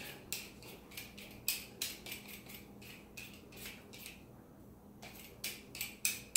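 Vegetable peeler scraping the skin off a raw potato in short, quick strokes, about two a second, with a brief pause just after the middle.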